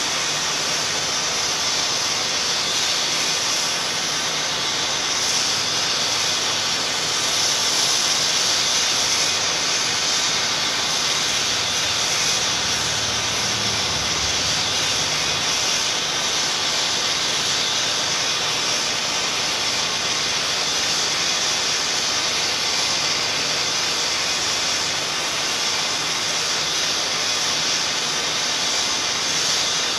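Steady, loud hissing noise that holds even and unbroken, strongest in the high range, with no other sound standing out.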